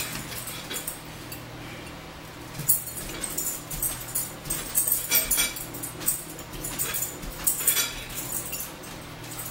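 Metal spoons clinking and scraping against bowls as two people eat soup, in a few short clusters of clinks about three, five and eight seconds in.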